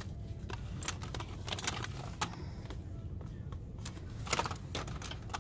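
Scattered clicks and rattles of boxed cosmetics and plastic packaging being handled, a few sharper ones about a second and a half in and again near the end, over a steady low store hum.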